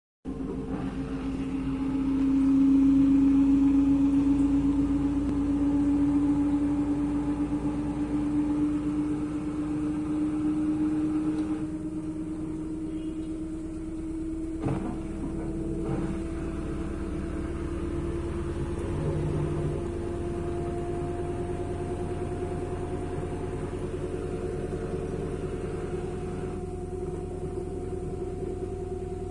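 LG front-loading washing machine spinning its drum with a slightly unbalanced load. A steady motor whine rises slowly in pitch as the spin speeds up, over a constant low rumble, with a single click about halfway through.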